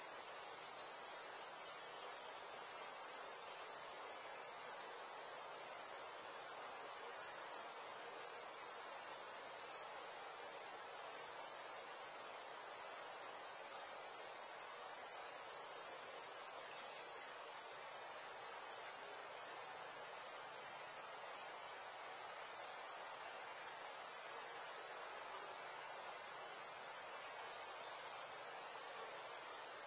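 A steady, high-pitched chorus of crickets that goes on without a break.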